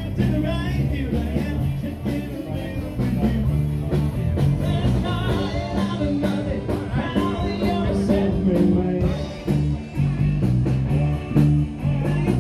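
Rock and roll music with a singer, guitar and a moving bass line.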